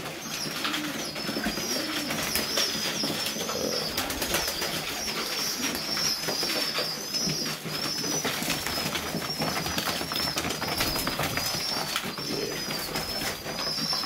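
Serbian Highflyer pigeons in a loft: a steady run of high, repeated chirping calls over faint low cooing, with scattered small clicks and scuffles.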